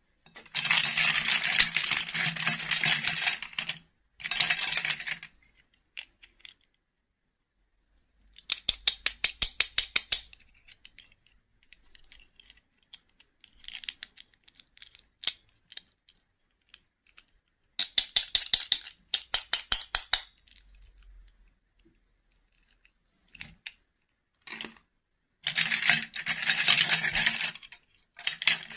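Small plastic dolls and their plastic dresses clattering and rattling as hands rummage through them in a bowl and fit dresses onto the dolls. There are loud bursts of rattling near the start and near the end, and two runs of quick, even clicks in between.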